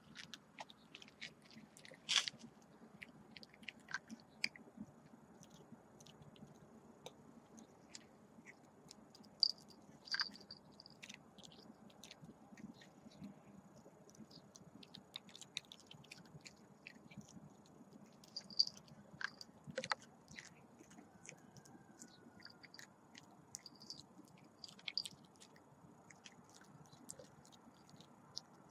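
A puppy chewing and gnawing on a small pebble: faint, irregular clicks and crunches of teeth on stone.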